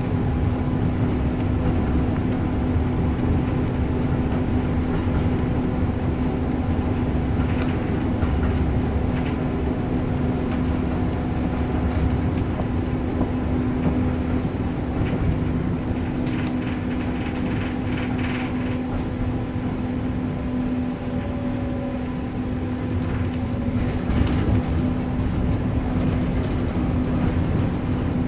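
Tram T8K-503 running along its line: a steady rumble of wheels on rails under a constant hum, with a few clicks and knocks along the way.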